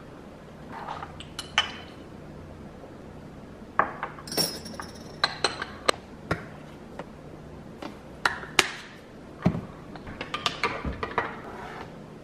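Kitchen counter sounds while coffee is made: a scattered series of clinks and knocks of a ceramic mug and utensils, over a faint low steady hum.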